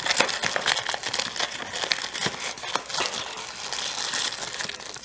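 Crinkling and rustling of wrapped snack cakes and a cardboard snack-cake box as a hand rummages inside to pull out a cake: an irregular stream of crackles throughout.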